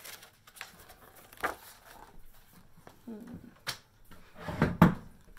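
Handling of a paperback picture book: paper rustles and a few soft knocks, the loudest, a rustle and knock, near the end as the book is lifted open.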